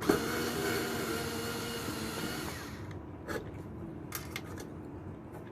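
Cordless electric screwdriver motor whirring steadily for about two and a half seconds, then stopping, followed by a few light clicks of handling. The tool is acting up: 'technical difficulties with my power tool' despite a fresh charge.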